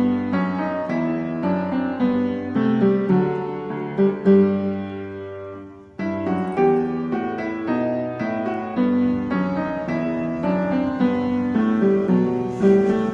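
Background piano music, a slow melody with chords; it fades out about six seconds in and starts again with a new phrase.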